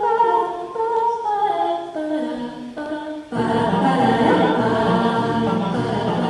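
Choral music: a melody stepping down note by note, then a fuller sound of many voices comes in just past three seconds in.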